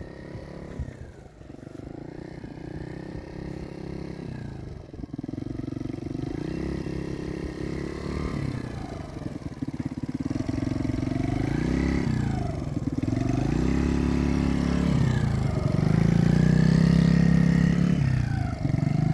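Yamaha YFZ50 youth ATV's small single-cylinder four-stroke engine running as it comes closer, growing louder, with the throttle opened and eased off several times so the engine note rises and falls repeatedly in the second half.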